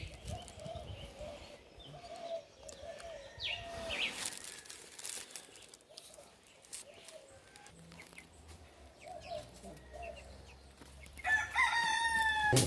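A rooster crows near the end, one long drawn-out call that is the loudest sound here; before it, chickens cluck softly with a few short bird chirps.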